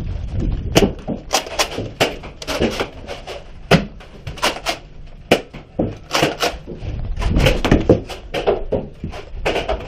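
Irregular sharp clicks and knocks, about two or three a second, over low rumbling that swells near the start and again about seven seconds in.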